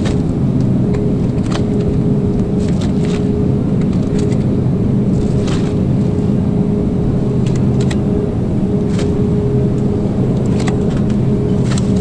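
Steady loud mechanical hum holding a constant low tone, with scattered crinkles and taps as plastic-wrapped packs of ground beef are dropped into a reusable shopping bag.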